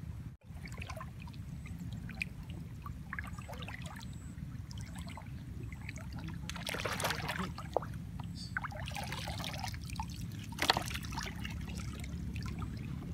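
Water sloshing and splashing around people wading chest-deep, with several louder splashes in the second half.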